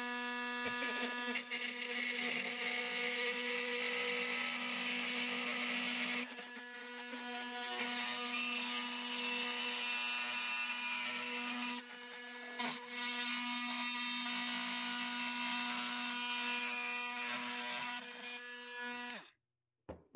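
Oscillating multi-tool with a metal-cutting blade buzzing steadily as it cuts through thick nails in a wooden window frame. The cutting noise eases off briefly twice, and the tool stops near the end.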